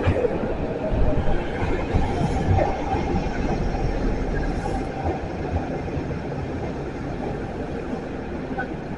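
Nagoya Municipal Subway N3000 series six-car train pulling into the station right beside the platform edge, its wheels and running gear rumbling and rattling steadily. The noise slowly fades as the train slows for its stop.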